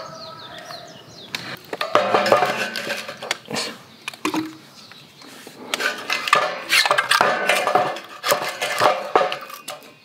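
Irregular clanks and knocks of steel: the perforated steel panels of a HILLS FIELD fire pit table being set on its frame, then split firewood being laid into the steel fire box, wood knocking against metal.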